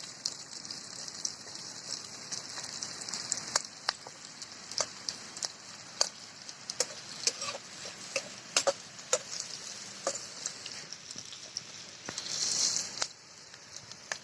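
Pork sizzling as it fries in a pan, a steady hiss broken by scattered pops and crackles, with the hiss swelling louder for about a second near the end.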